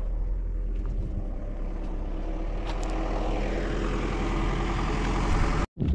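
A motor vehicle's engine running steadily with a low rumble, the noise swelling over the second half, then cut off abruptly near the end.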